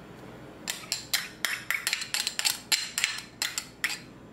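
Large metal spoon clinking and scraping against a stainless steel mixing bowl while stirring mashed potatoes: a quick, irregular run of clinks starting about a second in and stopping shortly before the end.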